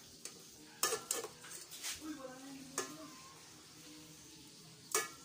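Faint sizzle of fish frying in oil, under a few sharp clicks and knocks, the loudest near the end, with a brief murmur of voices in the middle.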